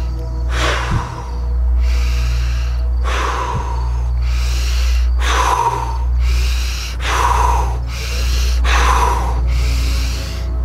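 A man taking deep, forceful breaths through the mouth, in and out about five times at an even pace of roughly one full breath every two seconds, as the lead-up to a long breath-hold. A steady low ambient music drone runs underneath.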